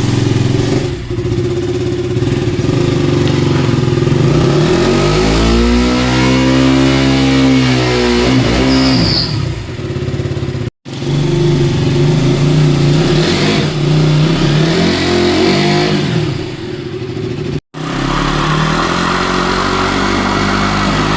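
KTM Duke 200's single-cylinder engine revving hard in a rear-tyre burnout, the pitch climbing and falling back around the middle, with tyre noise and a brief high squeal. The sound cuts out briefly twice.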